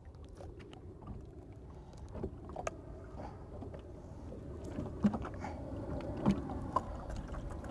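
Water lapping against the hull of a small boat, with a few short knocks and clicks scattered through it, a little louder near the end.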